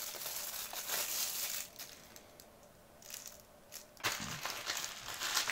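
Plastic packaging being handled: the clear plastic bag around a small boxed pair of earbuds crinkles and crackles for about two seconds, then goes nearly quiet. About four seconds in, a padded bubble mailer starts rustling and crackling.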